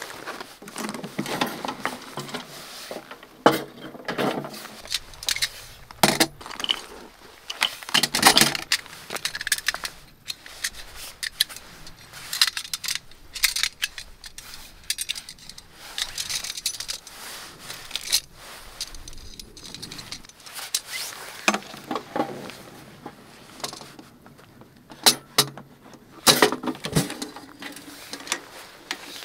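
Metal parts of a portable steel fire box clinking, rattling and scraping as it is unpacked and assembled, with rustling of its fabric carry bag. Scattered sharp knocks and clicks come through the whole stretch.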